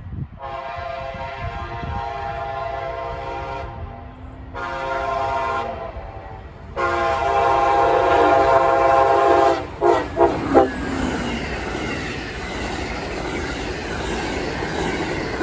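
Amtrak Siemens ALC-42 Charger locomotive's air horn sounding a long blast, a short one and another long one, then several quick toots as a salute. Then the rumble and clickety-clack of the passenger coaches rolling past.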